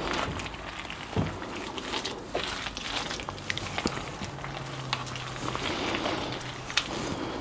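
Thick mayonnaise-dressed potato salad being stirred in a stainless steel bowl with a wooden spoon: wet, sticky mixing sounds with scattered clicks of the spoon against the bowl.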